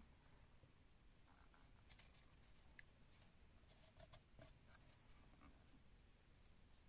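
Near silence: room tone with a few faint light clicks and scratches.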